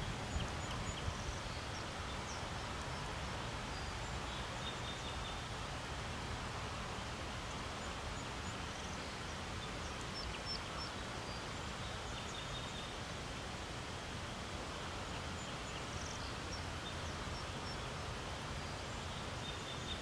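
Steady outdoor background noise with faint, scattered high bird chirps from small birds.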